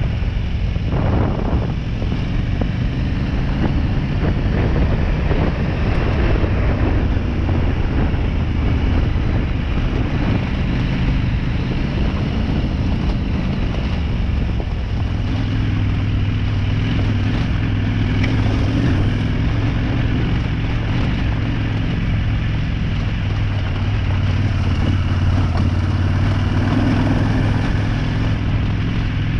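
Off-road motorcycle engine running as the bike rides along a trail, with wind noise on the microphone; the engine's note holds steadier and stronger from about halfway through.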